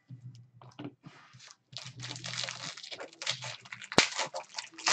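Foil trading-card pack wrapper being torn open and crinkled by hand, with a sharp click about four seconds in.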